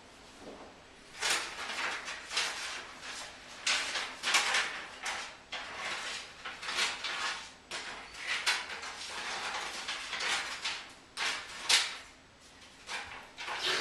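Paper being handled and torn close to a microphone for a foley effect: a run of irregular scratchy rustling strokes, several a second, starting about a second in and stopping near the end.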